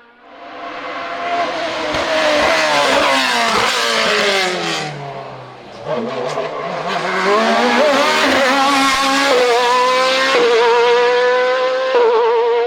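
High-revving hillclimb race car engine at full throttle. Its note falls steeply around the middle as the car slows, then climbs again as it accelerates hard, with quick gear changes near the end.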